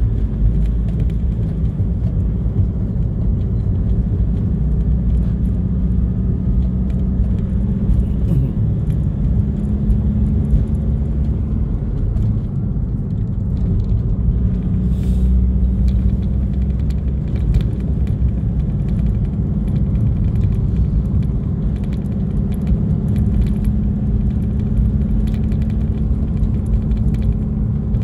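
Motor vehicle driving on a mountain road: a steady engine hum over a low road rumble, with scattered light rattles.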